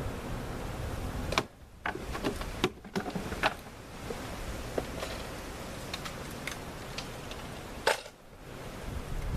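Wooden beehive boxes being handled and set in place: a handful of sharp knocks and clicks over steady wind noise on the microphone.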